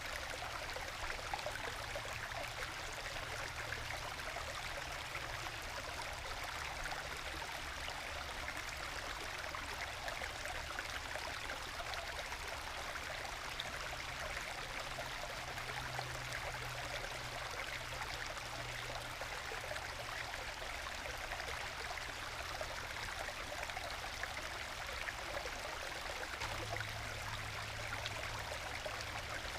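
Small forest stream babbling and gurgling as it trickles over low waterfalls worn into solid bedrock, with small plunge pools between them. The flow is gentle and steady throughout.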